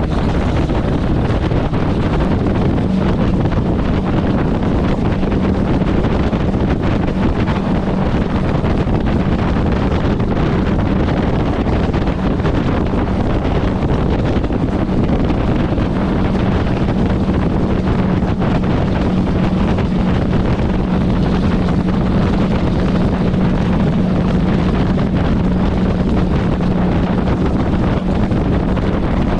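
1980 Chevy K20's 350 small-block V8 running through glasspack exhaust, holding a steady drone under load while towing a skid steer on a trailer, with wind noise on the microphone and road rumble.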